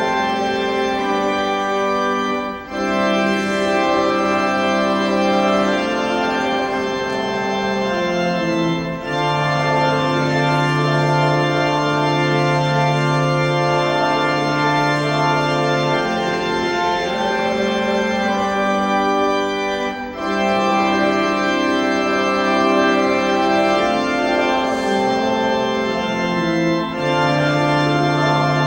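Church organ playing held chords in slow phrases, with a few short breaks between them.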